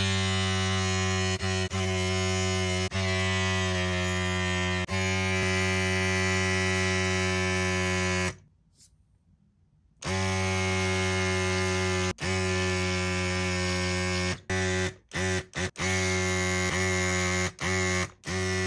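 A small electric motor running with a steady hum. It stops for about a second and a half near the middle, then starts again, with several short cut-outs near the end.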